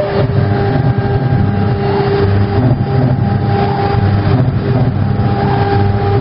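High-speed CNC router carving wood: the spindle runs with a steady tone over a lower mechanical hum as its cutter works through the panel and the head travels across it.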